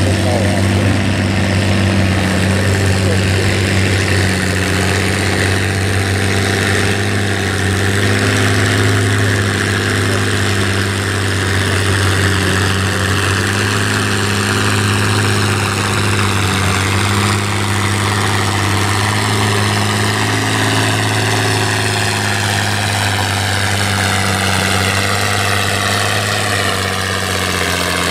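Tractor and pulling-sled engines idling steadily, a Farmall 460 hooked to a Mack-truck sled. A faint higher whine shifts slowly in pitch in the later part.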